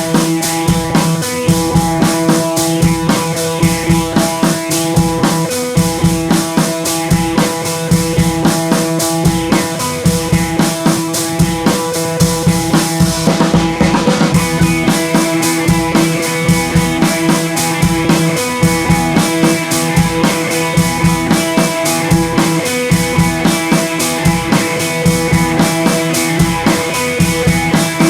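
Background music with a steady drum-kit beat and guitar.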